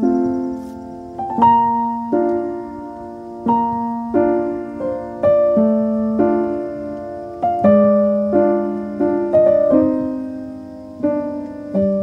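Background music of slow solo piano, with a new chord struck about once a second, each ringing and fading away.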